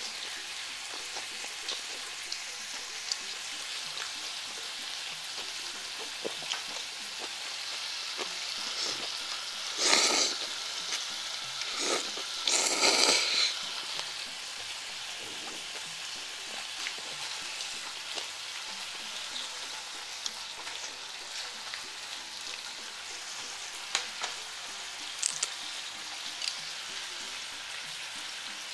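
Pork belly and scallop slices sizzling steadily on a griddle plate over a portable gas stove, with scattered light clicks. A few brief louder noises stand out, one about ten seconds in and two more around twelve to thirteen seconds.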